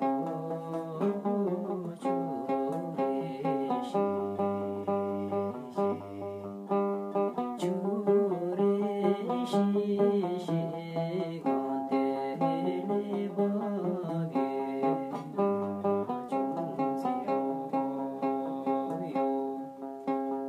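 Dramnyen, the Bhutanese long-necked lute, plucked in a lively melodic tune of quick repeated notes and changing chords.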